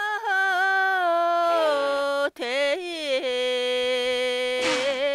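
A single unaccompanied voice singing long, drawn-out notes with wavering ornamental turns, pausing briefly for breath a little over two seconds in before another long held note.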